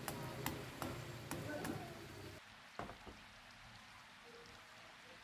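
A wooden spatula taps and scrapes a metal frying pan while a cassava tortilla cooks: a few sharp clicks about every half second over a low steady hum. After about two and a half seconds the sound drops away, and a single knock follows.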